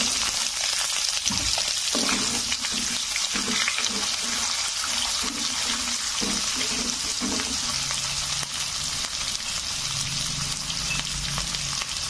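Chopped onions sizzling steadily in hot oil in a nonstick kadai, with cumin seeds and dal frying alongside. A metal spoon stirs them with a few low scrapes and knocks in the middle.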